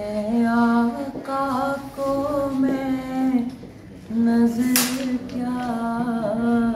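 A boy singing an Urdu naat unaccompanied, in long held, slightly wavering notes. The singing comes in two phrases, with a breath pause about three and a half seconds in.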